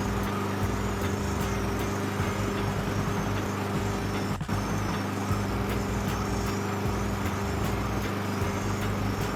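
Honda HRX217 lawn mower's single-cylinder engine running steadily at an even speed while the drive is adjusted.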